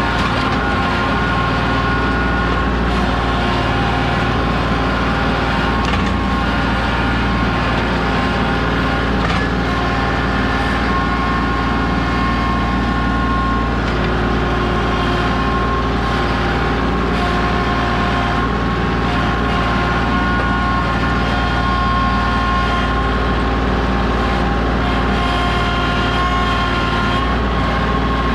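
Kubota compact tractor's diesel engine running steadily under load while the front loader is worked, with a steady whine that shifts in pitch now and then.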